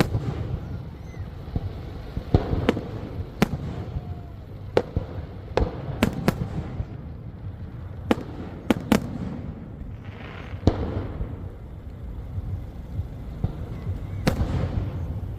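Fireworks exploding: a dozen or so sharp bangs at irregular intervals, some in quick clusters, over a steady low rumble.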